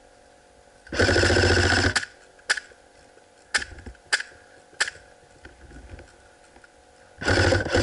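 Airsoft electric gun firing a rapid full-auto burst of about a second, then single shots as four sharp clicks over the next few seconds, and a second burst near the end.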